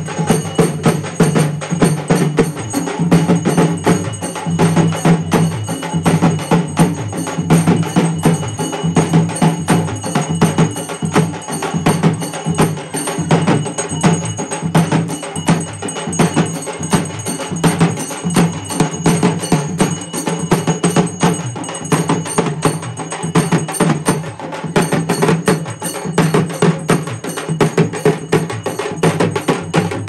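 A group of large Tamil frame drums (tapou, or parai) beaten with sticks in a fast, steady rhythm, many strikes a second, loud and unbroken.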